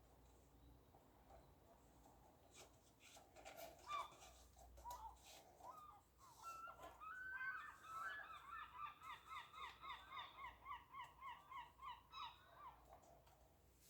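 Faint bird calls: a fast run of short calls that each fall in pitch, about five a second, after a few scattered clicks and chirps.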